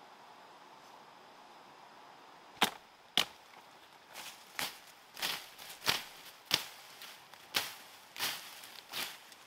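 A series of about ten sharp knocks, starting a little over two seconds in and coming irregularly every half second to a second, over a faint steady hiss.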